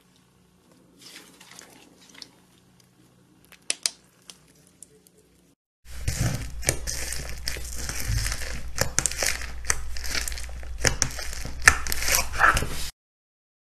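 Slime being squeezed and kneaded by hand, crackling and popping. Faint scattered clicks at first, then about six seconds in a much louder, dense crackling that stops abruptly just before the end.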